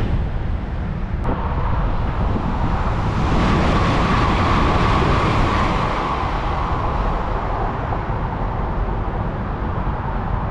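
Southeastern Class 395 'Javelin' high-speed electric train passing at speed: a rushing noise that swells and then eases, carrying a steady whine that is strongest around the middle.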